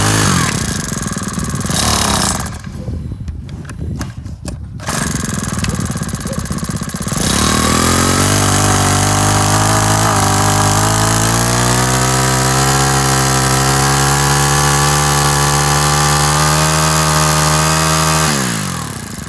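Small four-stroke Robin (Makita) brush-cutter engine running, loud and noisy in two spells over the first several seconds. It then settles into a steady, even idle for about ten seconds, and winds down as it is shut off near the end.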